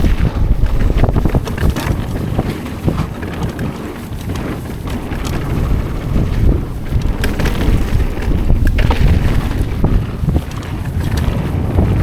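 Wind buffeting the microphone of an action camera on a Yeti SB130 mountain bike rolling down a trail, with tyre rumble and scattered knocks and rattles over bumps.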